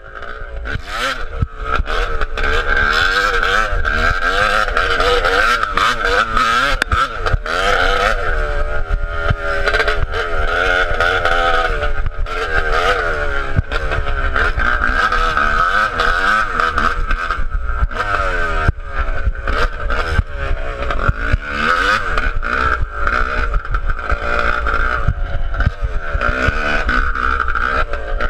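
Yamaha YZ250 two-stroke dirt bike engine running open-piped, with its silencer broken off, heard from the bike while riding. The revs rise and fall again and again, with frequent short knocks.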